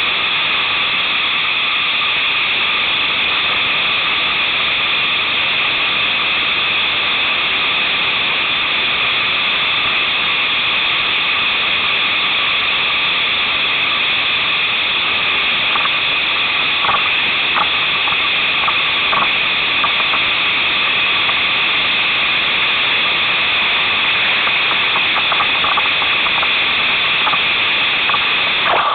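Whitewater creek rapids rushing around a kayak, a loud steady hiss of moving water close up. A few faint short ticks come through in the second half.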